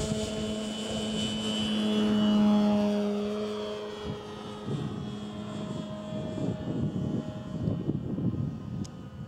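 Radio-controlled model tow plane's propeller engine running at full power while towing a glider aloft. The steady drone swells as the tug passes about two and a half seconds in, then drops slightly in pitch and fades as it climbs away.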